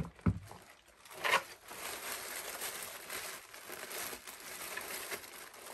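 Clear plastic bag crinkling and rustling as hands pull small parts and a card out of it, with a short knock just after the start.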